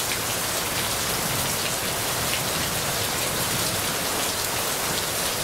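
Heavy rain falling steadily: a dense, even hiss with the odd close drop striking.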